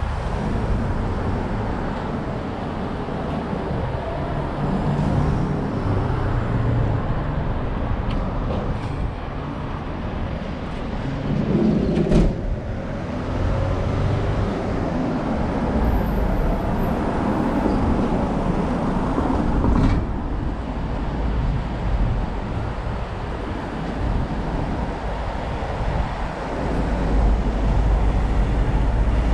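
Street traffic in a city centre: vehicles rumbling past close by, the sound swelling and fading as they go. There is a single sharp knock about twelve seconds in.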